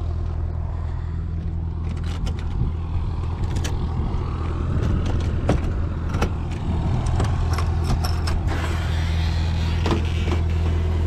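A steady low engine drone with scattered sharp clicks and knocks.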